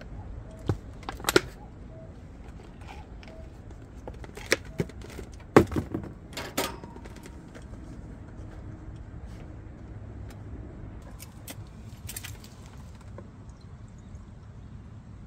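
A plastic drink dispenser and a plastic bottle being handled: a scatter of sharp plastic clicks and knocks, the loudest about five and a half seconds in, over a low steady rumble.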